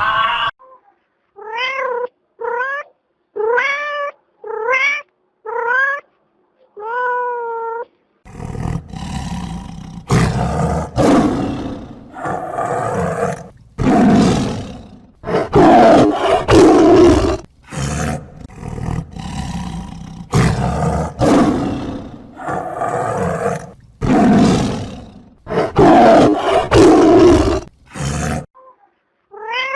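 A domestic cat meowing about six times, each call rising then falling in pitch. About 8 seconds in, a big cat starts roaring and growling in long, harsh, repeated bouts that run for some twenty seconds.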